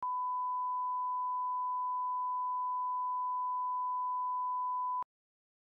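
A steady 1 kHz reference tone of the kind played with colour-bar test cards, one pure unchanging pitch that cuts off sharply about five seconds in.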